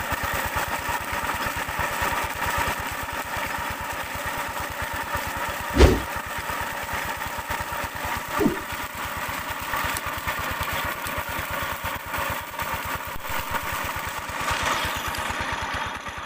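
Peter diesel engine running steadily with an even, fast chugging beat as it drives a tube-well pump, over the steady rush of water gushing from the outlet pipe. Two brief thumps come near the middle.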